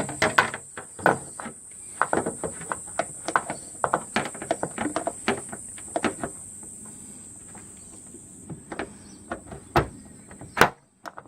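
Metal hand tools clinking and clicking in short, irregular spells: a socket and ratchet being fitted and worked on a car door's hinge bolts. Crickets chirp steadily in the background.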